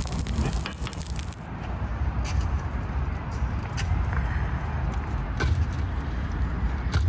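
Wood fire burning in the firebox of an offset smoker as split logs are added, with sharp pops and knocks every second or so over a low steady rumble.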